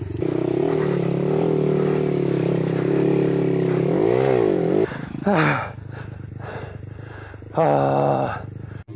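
Monkey bike (mini motorcycle) engine running steadily, then revved up and back down about four seconds in, with two more short, loud revs in the second half.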